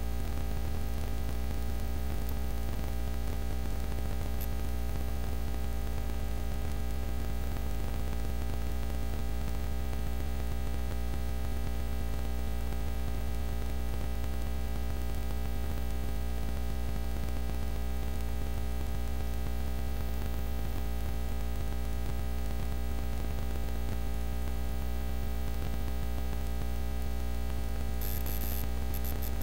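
Steady electrical hum with static hiss, strongest in the low bass and unchanging throughout, with a few brief high crackles near the end.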